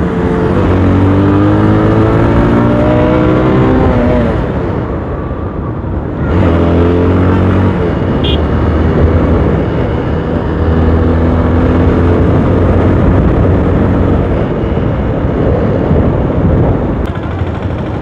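Motorcycle engine accelerating, its pitch climbing, easing off about four seconds in, climbing again around six seconds, then running steadier, over a constant rushing noise.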